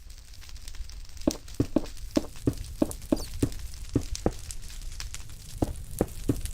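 A run of sharp knocks, about three a second, over a low steady rumble, pausing briefly past the middle and picking up again near the end.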